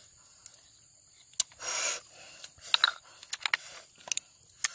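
Small clicks and taps of cooked snail shells being handled and picked at with a thin stick over a clay bowl, with a short rushing noise about two seconds in.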